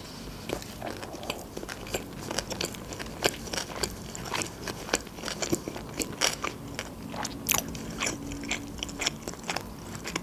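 A person chewing a mouthful of sushi roll, picked up close for mukbang ASMR: a quick, irregular run of small mouth clicks.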